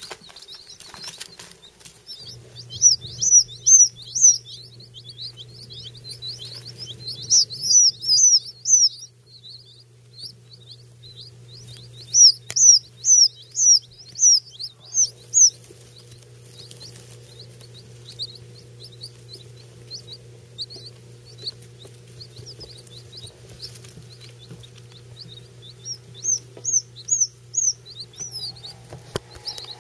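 A brood of week-old pheasant chicks peeping: quick high peeps, each falling in pitch, come in several loud runs with quieter peeping between. A steady low hum runs underneath.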